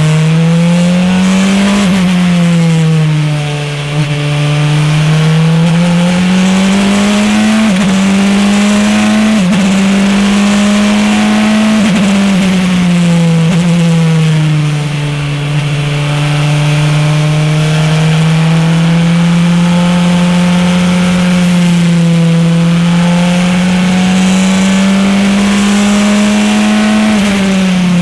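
Praga R1T race car's turbocharged four-cylinder engine at full throttle, heard from inside the cockpit: the pitch climbs and drops sharply with quick upshifts through the first half, sags for a few seconds, then holds high and steady at speed before climbing again near the end. A steady hiss runs underneath.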